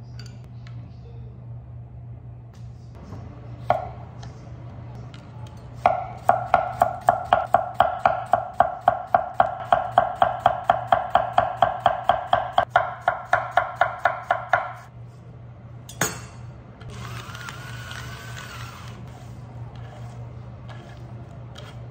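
Knife thinly slicing a cucumber on a wooden cutting board: a fast, even run of knocks, about four a second, each ringing briefly, lasting about nine seconds. A little later comes a single knock, then a short hiss.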